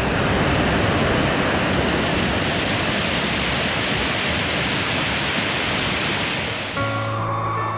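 Linhope Spout, a waterfall dropping 18 m down a rock face into a pool, rushing with a steady, dense roar of falling water. Background music comes in near the end.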